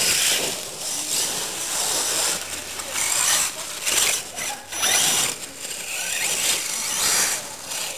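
Radio-controlled monster truck driving over dirt bumps, its motor and gears whining in repeated surges as the throttle is worked, about half a dozen times.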